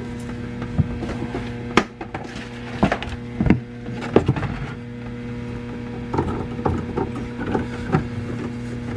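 Irregular knocks, clanks and scrapes of hands and tools working on the garbage disposal and drain fittings under a kitchen sink, over a steady electrical hum.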